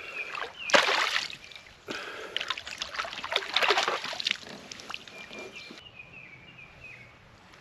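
Water splashing and sloshing beside a kayak as a hooked bass is landed, in irregular splashes that are loudest about a second in and again in the middle, then die down.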